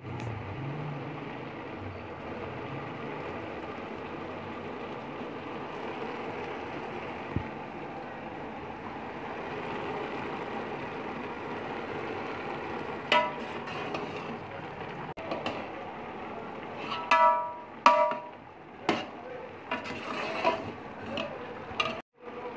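Pot of mustard greens simmering with a steady bubbling hiss. In the second half a metal spoon clanks and rings against the pot several times, loudest about three quarters of the way through.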